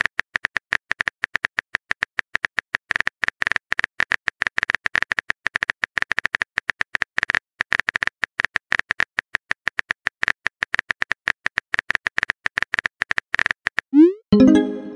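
Keyboard tap sound effects from a texting-story app, quick irregular clicks as a message is typed out letter by letter. Near the end comes a short rising send sound with a brief tone as the message is sent.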